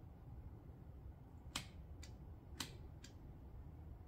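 Four short sharp clicks in two pairs, a louder click then a fainter one each time, from an Allturn hot stapler plastic welder's trigger being pulsed on and off to control the heat while a staple melts into a cracked plastic car bumper.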